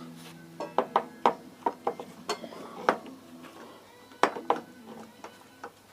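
Metal clinks and knocks of tools and brake caliper parts being handled on a workbench: irregular sharp taps, several in quick runs, over a faint steady hum.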